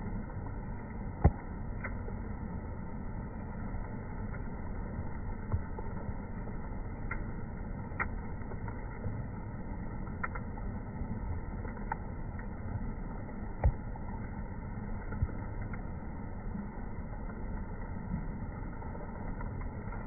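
Steady low outdoor background noise, with a few brief sharp clicks; the loudest come about a second in and about two-thirds of the way through.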